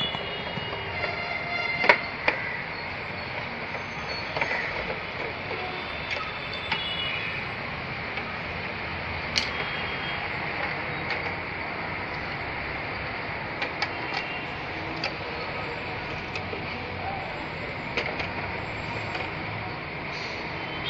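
Scattered clicks and small knocks of metal parts and tools being handled while a note counting machine is worked on, over a steady noise. The sharpest knock comes about two seconds in.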